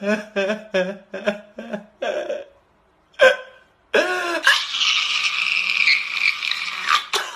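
A man crying: short sobs about three a second, then one long, loud wail from about four seconds in.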